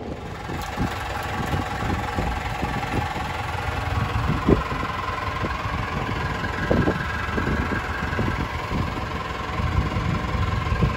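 Fishing boat's engine running steadily, with a sharp knock about four and a half seconds in.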